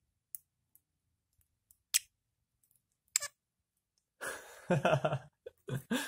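A few sharp, widely spaced clicks, then a budgerigar's mumbled chatter in the last two seconds.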